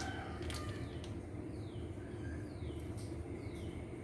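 A small bird's short falling chirps, repeating about once a second, over a faint steady low hum. There is a light click near the start.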